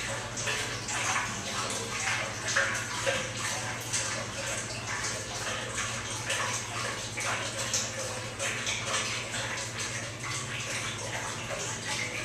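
Used motor oil pouring from a plastic drain container into the funnel of a used-oil collection tank, splashing and gurgling irregularly.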